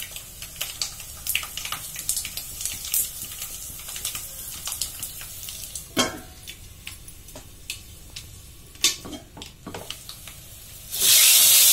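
Hot tempering oil with mustard seeds and peppercorns crackling in a steel pan, many small pops over a faint hiss, with a few sharper clinks of the steel lid. About eleven seconds in, a sudden loud hissing sizzle starts.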